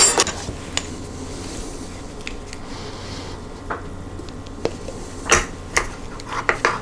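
A spoon scraping chunky peanut butter out of a plastic jar and into a plastic measuring cup: scattered light clicks and scrapes, a few more of them near the end, over a faint steady low hum.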